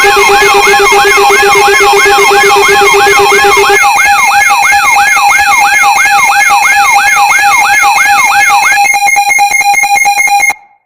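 Loud synthetic emergency alert sounds for a mock Emergency Alert System broadcast: steady alert tones under a siren-like sweep that repeats nearly three times a second. A lower tone drops out about four seconds in. Near the end the sweep stops, leaving rapid buzzy pulsing that cuts off suddenly.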